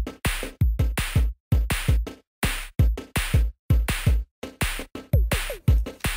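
Background electronic music with a steady drum-machine beat of deep kick drums and sharper hits.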